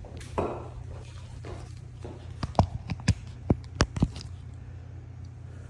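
Small metal hardware being handled: a quick run of about six sharp clicks and clinks in the middle, as a washer bearing and bolt are fitted, over a steady low hum.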